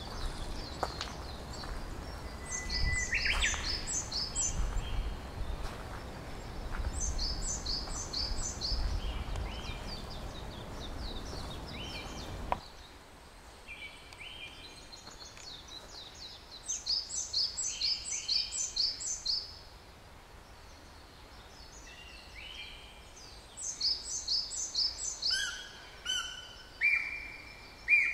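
Wild forest songbirds singing: phrases of five or six quick, high, evenly spaced notes, repeated several times a few seconds apart, with some lower whistled notes between. A low rumble runs under the first half and stops abruptly about halfway through.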